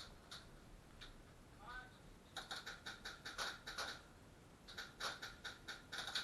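Airsoft guns firing at a distance: runs of rapid, faint snapping clicks, one burst a few seconds in and another near the end.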